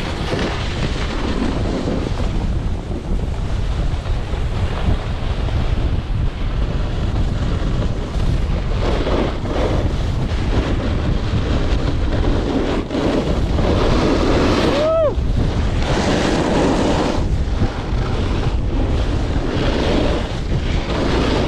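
Wind buffeting the microphone over the steady hiss and scrape of a snowboard carving down groomed snow.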